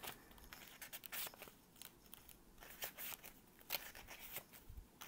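Faint, scattered rustles and crinkles of sheets of textured craft paper being handled and separated, with a few sharper crackles.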